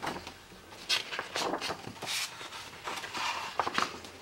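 Pages of a picture book being turned and smoothed flat by hand: several short papery rustles and swishes.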